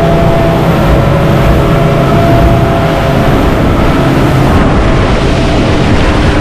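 Motorboat running at speed: a steady engine drone under the rush of the churned wake and wind noise.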